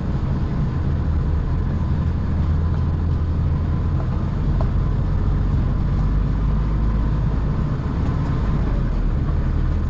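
HGV lorry's diesel engine running at low revs while the truck creeps slowly forward, a steady low drone.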